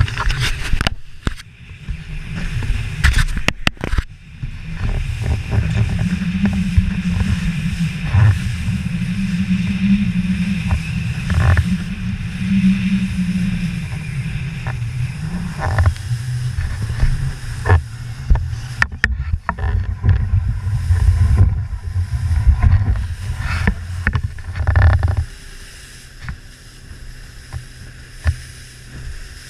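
Outboard motor of a Joker Clubman 21 rigid inflatable boat running hard through big waves, its pitch rising and falling, with rushing water and wind and scattered sharp knocks of the hull slamming into waves. Near the end the whole sound drops sharply quieter.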